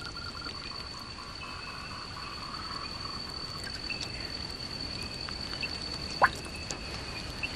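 Night forest chorus: a steady high-pitched insect trill with frogs calling and faint clicks. About six seconds in, a single short rising chirp stands out above the rest.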